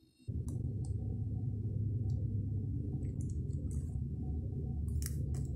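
Steady low hum that starts about a third of a second in, with a few light clicks and taps from a phone being handled.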